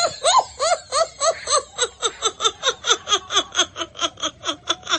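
High-pitched laughter: a long unbroken run of quick 'ha' pulses, about five a second.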